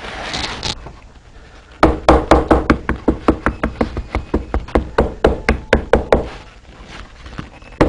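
Hammer tapping wet, heavy saddle-skirting leather down around the bar of a saddle tree to shape it into place: a quick, even run of sharp taps, about five a second for some four seconds, then a pause and a few more taps near the end.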